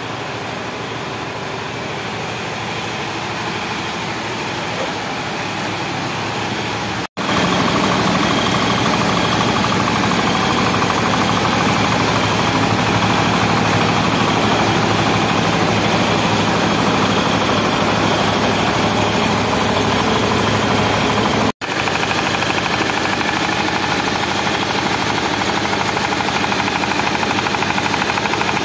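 Rice mill machinery running: a stationary engine belt-driving the hulling and milling machines, a steady mechanical drone. It is louder between two short breaks, about 7 s and 21 s in, where the view is close to the machine with grain moving through it.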